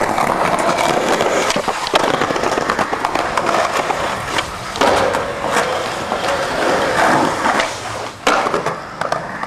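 Skateboard wheels rolling loudly over rough concrete, with a few sharp clacks of the board striking the ground, about two, five and eight seconds in.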